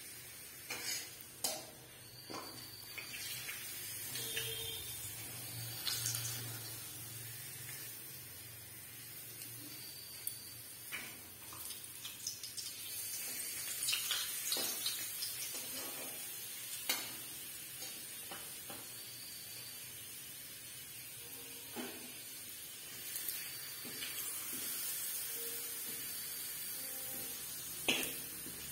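Papads frying in oil in a steel wok, sizzling steadily, with a metal spatula scraping and tapping against the pan every few seconds.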